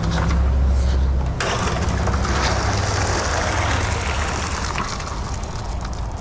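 Concrete mixer running with a steady low hum. About a second and a half in, a loud gritty rushing of wet concrete joins it.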